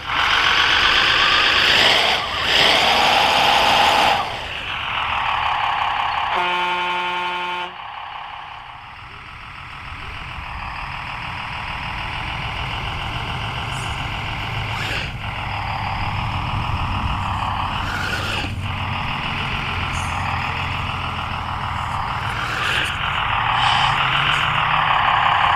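Servonaut SM3 sound module in an RC Unimog 406 scale truck playing a simulated diesel truck engine through its speaker, the revs rising and falling as the truck crawls. About six and a half seconds in, a steady horn sounds for about a second.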